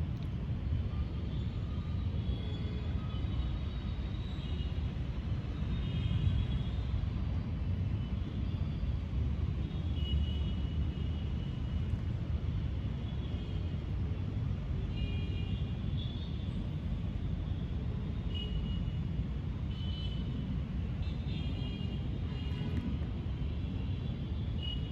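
Low, steady rumble of a thunderstorm, swelling slightly twice, with faint short high-pitched tones scattered over it.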